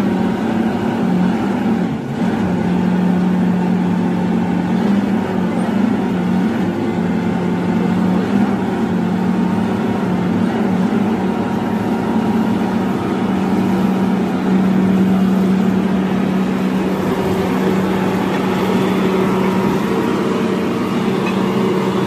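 Underground coal-cutting machine running, a loud, steady drone held at one low pitch with a faint higher tone above it.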